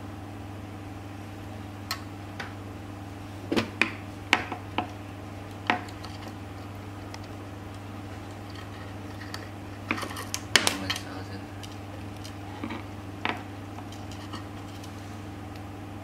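Small metal clicks and clinks as screws and a metal mounting plate are handled and driven with a hand screwdriver into a wooden drawer front. The sharp clicks come in two clusters, over a steady low hum.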